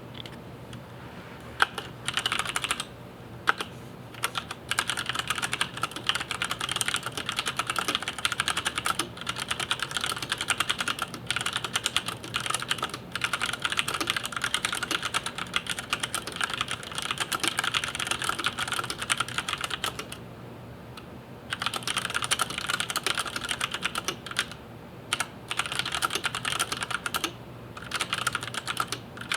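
Fast, continuous typing on a FILCO Majestouch 2 Ninja mechanical keyboard with Cherry MX Brown switches: quick runs of key clicks broken by a few short pauses, the longest about two-thirds of the way through. A faint steady hum lies underneath.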